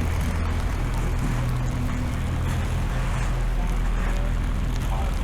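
Steady low engine rumble of vehicles in city street traffic, under a constant hiss.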